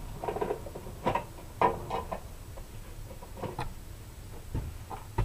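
Drill bits being handled and sorted: a series of sharp clicks and knocks at irregular intervals, with a faint pitched sound near the start.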